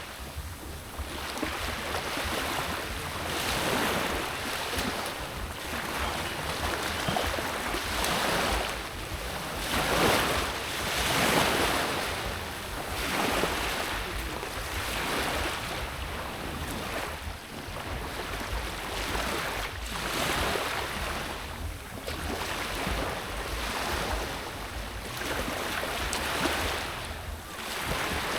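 Sea waves washing in, in surges every second or two, with wind buffeting the microphone as a low rumble.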